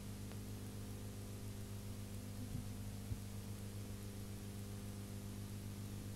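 Steady electrical hum with a faint hiss on an old soundtrack, with a single small click about three seconds in.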